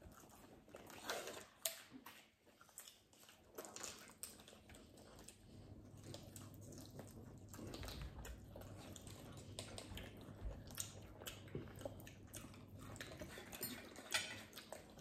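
Several people biting and chewing crispy breaded fried chicken, faint, with scattered sharp crunches a few seconds apart.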